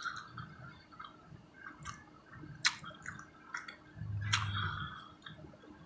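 Close-up sounds of a person chewing pizza: wet smacking and sharp mouth clicks, with a brief low hum about four seconds in.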